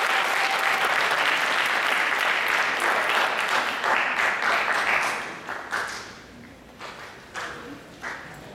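Audience applauding. The applause dies away about five seconds in, leaving a few scattered single claps.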